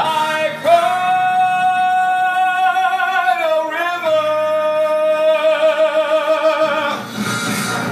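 A singer holds two long notes of a slow ballad, with a brief turn in pitch between them about three and a half seconds in; the second note wavers with vibrato near its end.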